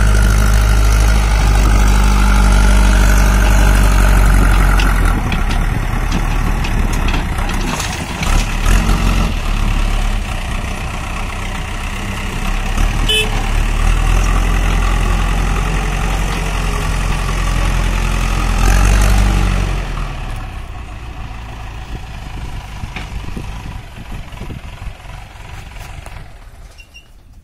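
JCB backhoe loader's diesel engine running hard under load while working the front loader bucket, revving up in long spells and dropping back toward idle in between. It eases off and runs more quietly over the last several seconds.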